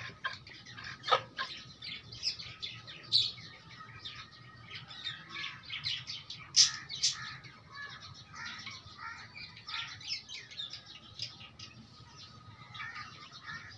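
Young chickens cheeping in short, high chirps, scattered and frequent, with the loudest pair about six and a half seconds in.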